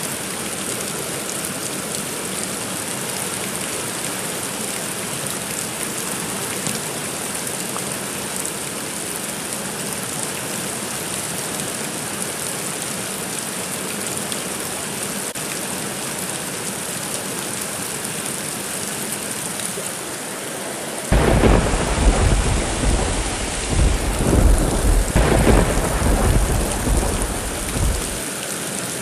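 Steady rain falling, then about twenty-one seconds in a sudden clap of thunder that rumbles on in several surges for about seven seconds before dying away.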